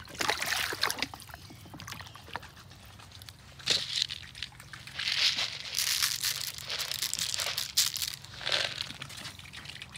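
Waterfowl feeding at dishes of feed and water, heard as irregular bursts of rustling and splashing, about six of them, with scattered small clicks.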